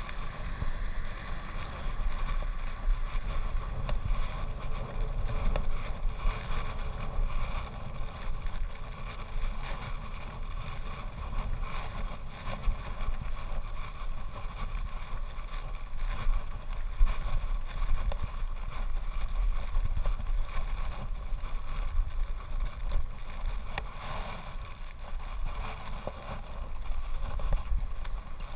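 Wind rumbling on the microphone of a camera riding on a road bicycle, over the steady noise of the bike rolling along a tarmac road.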